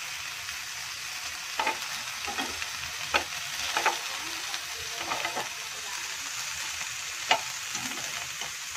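Ham, pineapple, onion and green pepper sizzling steadily in a granite-coated frying pan, with metal tongs clicking and tapping against the pan as the pieces are turned; the sharpest tap comes about seven seconds in.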